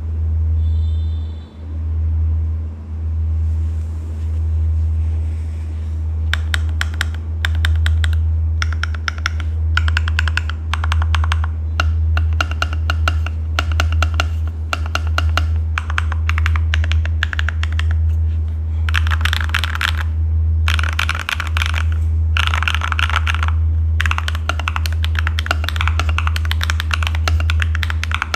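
Typing on an Akko ACR59 acrylic 60% keyboard in HHKB layout with stock, unlubed HMX Hydra switches. It starts about six seconds in as rapid runs of keystrokes broken by short pauses. A steady low bass drone runs underneath throughout.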